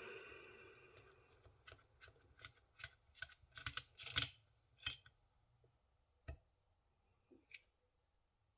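Light, irregular metallic clicks and clinks from unscrewing the connecting rod cap bolts on an LS V8 piston and rod, followed by a single knock a little after six seconds in.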